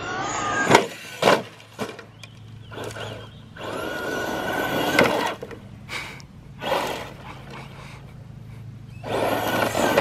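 Battery-powered RC car's electric motor whining in bursts of throttle as its tyres spin on gravel, with several sharp knocks as it slams into a wooden board ramp.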